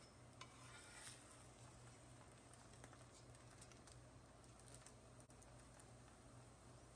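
Near silence: a faint steady hum with a few light clicks, a small cluster about a second in and scattered ones after, from steel tongs against a paratha on an iron tawa.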